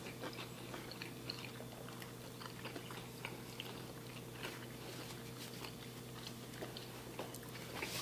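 Faint chewing of soft flour-tortilla tacos with chicken and slaw: scattered, irregular small wet mouth clicks and smacks, over a faint steady hum.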